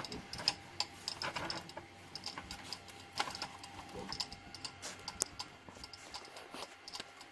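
Scattered light clicks and small rattles of small hard objects being handled on a desk, a few sharper clacks among them.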